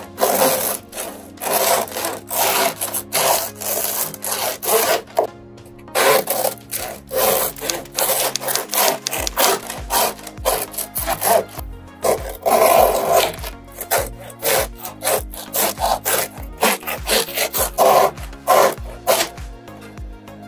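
A long knife sawing back and forth through the crust of a baked loaf of white bread, a rasping stroke with each pass of the blade, repeated many times.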